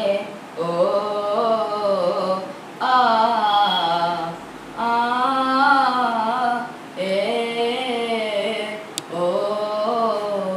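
A boy singing a Malayalam folk song (nadan pattu) unaccompanied, in phrases of about two seconds with short breaks between them.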